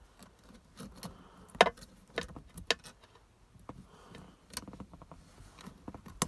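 Scattered light metallic clicks and taps of small parts being handled while a spring is fitted into a B&M shifter's lockout mechanism. The taps come irregularly, the sharpest about one and a half seconds in.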